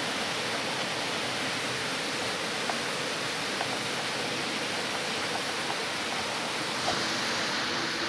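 Steady hiss of rushing water from a nearby waterfall, with a few faint light clicks.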